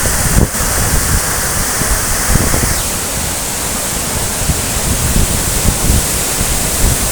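Waterfall pouring in a steady, loud rush of water, with irregular low buffeting; the hiss thins slightly about three seconds in.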